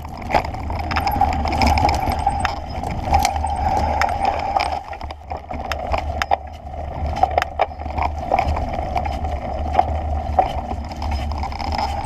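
Bicycle riding along a rough dirt trail: a steady low rumble of tyres and motion with irregular rattles and knocks as the bike goes over bumps.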